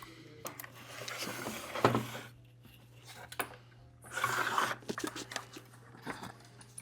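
Small clicks, taps and rustling from a remote controller's plastic parts and cables being handled during reassembly, with one sharper click about two seconds in, over a steady low hum.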